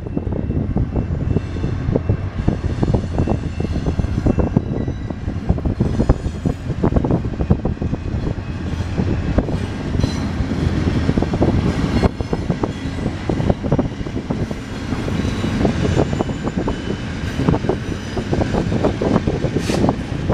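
Amtrak passenger train, a GE P42DC diesel locomotive and its coaches, passing over a steel truss bridge: a steady engine and wheel rumble with many rapid clicks and clatters of wheels over the rails.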